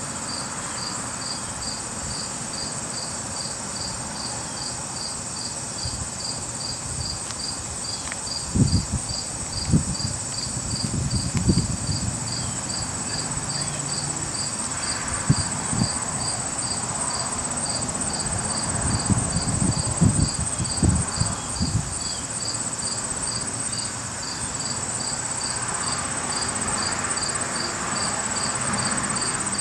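Insects chirping and trilling outdoors: a steady high trill with a regular chirp at about two a second. Several low thumps come through in the middle stretch.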